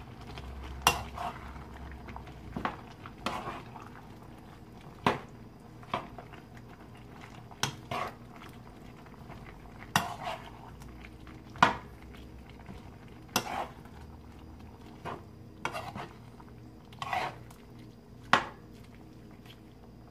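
A stirring utensil knocking and scraping against a frying pan as meat, carrots and potatoes are mixed. It makes sharp, irregular clacks, one every second or two.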